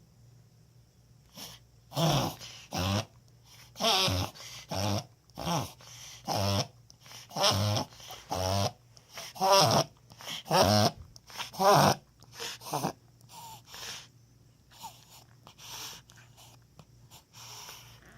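A dog making a run of loud, noisy breaths, about one a second, for some eleven seconds, then fainter ones near the end. Others take these attacks for a reverse sneeze, though the owner has wondered whether they are a cough or choking.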